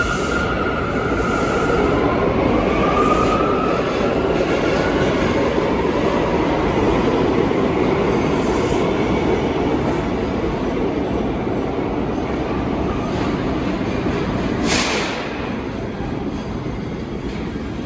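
New York City subway train running on the rails with a steady rumble. A high-pitched wheel squeal fades at the start, and a rising whine comes in over the first few seconds. A short hiss comes about 15 seconds in, after which the rumble is a little quieter.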